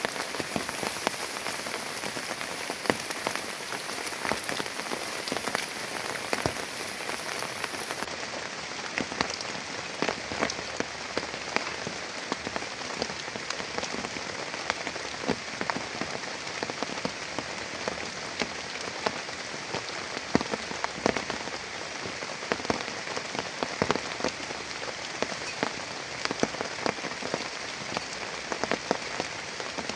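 Heavy rain falling steadily, with many separate drops hitting a surface close by.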